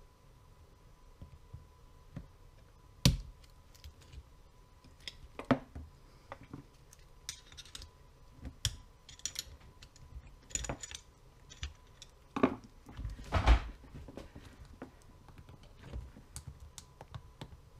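Hand tools clicking and scraping on a motorcycle gearbox shaft as a steel snap ring (circlip) is worked off it with circlip pliers and a pick. Irregular small metallic clicks and taps, with a few sharper knocks, the loudest about three and thirteen seconds in.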